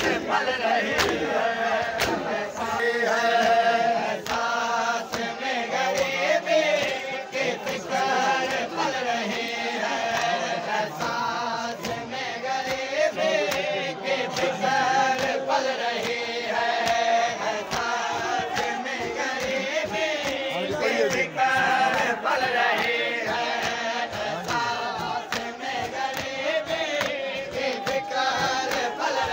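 A crowd of men chanting a noha together while beating their chests in matam. The hand slaps on their chests land as sharp hits at a steady beat under the voices.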